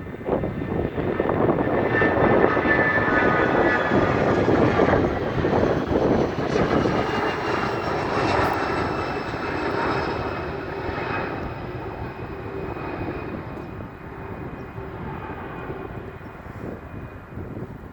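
Twin rear-mounted GE CF34 turbofans of a CRJ-200 regional jet at takeoff power, a roar with a high fan whine that swells within the first couple of seconds, peaks, then slowly fades as the jet passes and climbs away, the whine sliding down in pitch.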